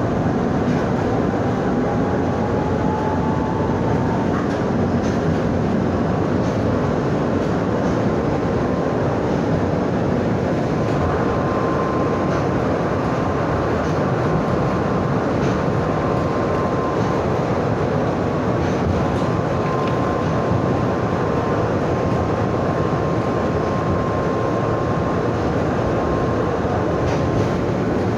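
Tram running on its rails: a steady, loud rumble with a thin whine that rises in pitch over the first few seconds and then holds steady, and a few faint clicks.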